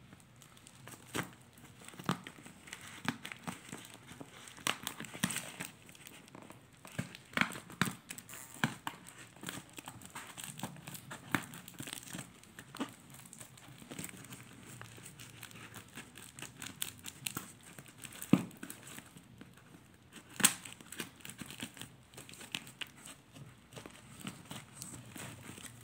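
Plastic wrap and packing tape on a parcel crinkling and crackling as it is handled and turned over, with irregular sharper snaps, the loudest about twenty seconds in.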